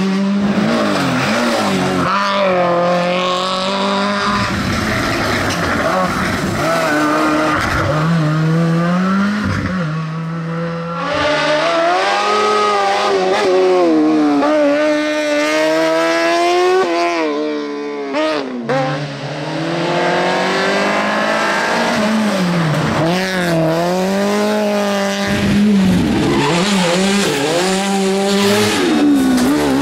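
Competition cars passing one after another on a mountain hillclimb, rally cars and an open single-seat buggy, their engines revving high and falling back again and again through quick gear changes. A little past halfway the engine sound drops away briefly before the next car revs up.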